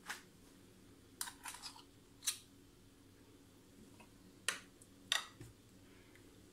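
Light clicks and scrapes of two metal spoons against each other as spoonfuls of sweet-potato filling are pushed off onto the dough: a scattering of short, sharp clicks, with a quick run of them about a second in.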